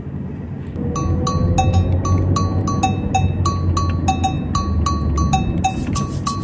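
Steady low rumble of a moving car's cabin. About a second in, a rapid, regular run of short bell-like pings at two alternating pitches begins, about three a second, and carries on to the end.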